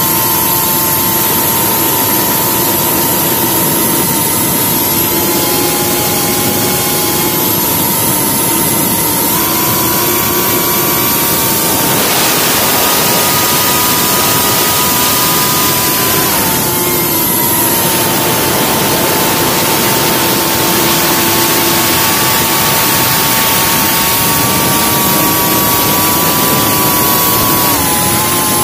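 IH3 Pro FPV quadcopter's brushless motors and propellers whining, recorded by the onboard camera's microphone. The pitch steps up about nine seconds in, turns rougher for a few seconds around the middle, and drops back, following the throttle.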